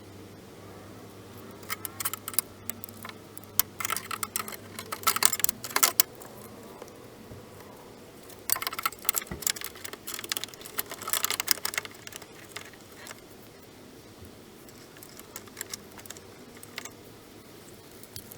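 Metal hand tools and small metal parts clinking and rattling as they are handled during work on a car door, in two busy spells of a few seconds each, then a few scattered clicks.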